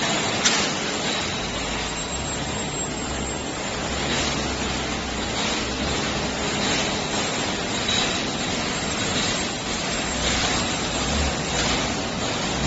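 Automatic steel mesh welding line running: a steady machinery din with a low hum. A sharp click comes about half a second in, and fainter clicks follow now and then.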